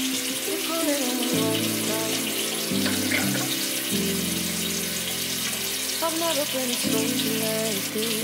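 Background music: a song with a singing voice over sustained chords that change every second or so, with a bathroom sink tap running underneath.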